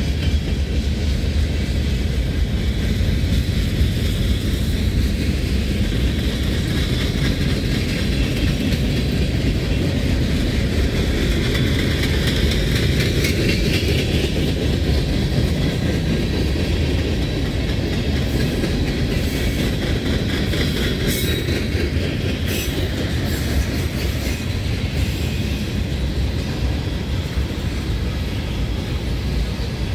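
Freight cars of a long Lake State Railway train rolling past at speed: a steady rumble of steel wheels on rail with clickety-clack over the rail joints. A few sharp high metallic clicks and squeals come through about two-thirds of the way in.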